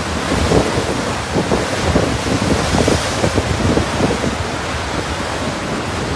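Heavy storm surf crashing and churning against a rocky shore, with strong wind buffeting the microphone in irregular low thumps.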